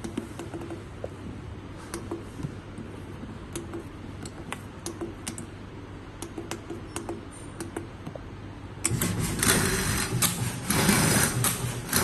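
Keypad buttons on a computerised roll-to-sheet cutting machine clicking one at a time over a low steady hum. About nine seconds in, the machine starts and runs loudly, feeding bubble wrap through and shear-cutting it into sheets.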